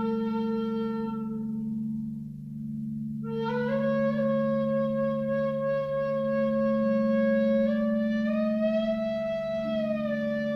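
Wooden flute playing slow, long-held notes over a steady crystal singing bowl drone. One note fades out about two seconds in; after a short pause a new phrase starts with a long note that slides upward and later eases back down.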